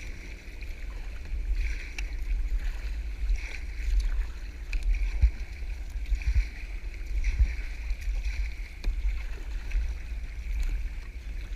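Kayak paddle strokes dipping and splashing in the water, about one every second and a half, over a steady low rumble.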